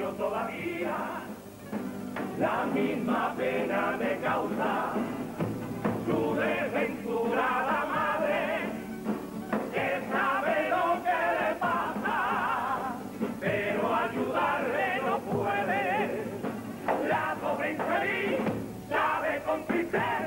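Men's chorus of a Cádiz carnival group singing together with instrumental accompaniment.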